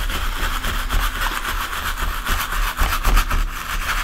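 Stencil brush scrubbing in small circles over a stencil on cardboard: a steady, rapid scratchy rubbing close to the microphone, with low knocks from the work surface.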